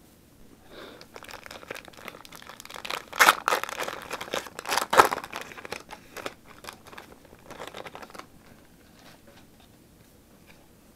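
Foil wrapper of a Pokémon TCG booster pack crinkling and tearing as it is opened by hand, loudest a few seconds in and dying down to light rustling after about eight seconds.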